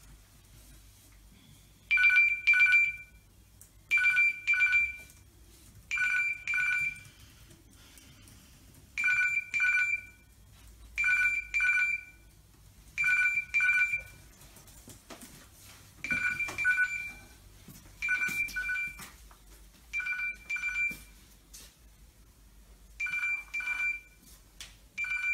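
A telephone ringing with an electronic two-tone trill: short rings about a second long, repeating roughly every two seconds, with a few longer gaps between them.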